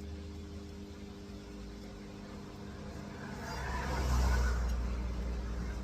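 Microwave oven running with a steady hum. About halfway through, a louder low rumble swells up over it and eases off slightly near the end.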